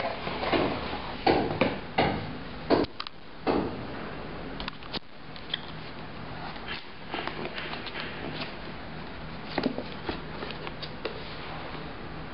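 Cardboard laptop box and packaging being handled: several sharp knocks and rubs in the first few seconds, then quieter rustling and small clicks as items are lifted out.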